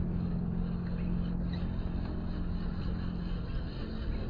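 WPL B24 RC truck's small electric motor and gearbox whirring steadily as it crawls over loose dirt.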